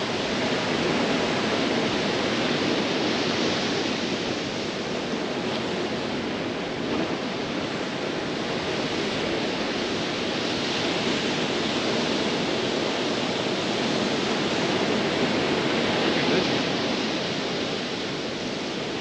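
Steady rushing of surf on a beach, slowly swelling and easing, with wind.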